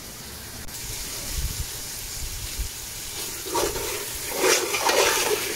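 Tomato purée frying in an aluminium pot with a steady sizzle; a little over three seconds in, a metal spoon starts stirring and scraping around the pot.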